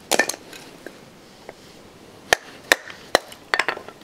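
A baton striking the spine of a Cold Steel Survivalist knife, driving its blade through a branch: sharp wooden knocks, a couple at the start, then after a pause of about two seconds a quicker run of about five strikes.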